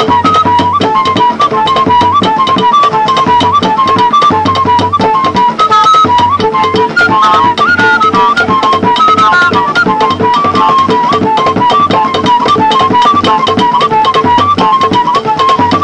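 Background music in a traditional folk style: a high, wavering melody line over a held drone and fast, steady drumming.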